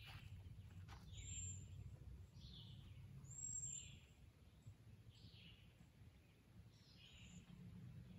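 Faint outdoor quiet with a bird calling over and over, short calls about once a second, above a low, steady background rumble.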